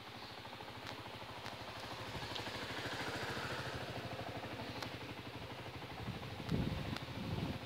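A vehicle passing: a steady mechanical noise that swells to its loudest about three seconds in and then fades, with a few heavy low rumbles near the end.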